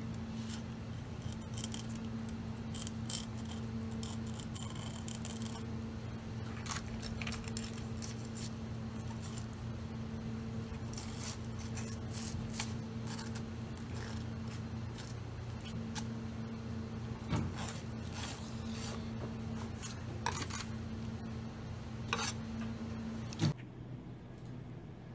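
Chef's knife scraping and cutting along an eel on a cutting board as it is filleted: many short scrapes and clicks over a steady kitchen hum. Both stop suddenly near the end.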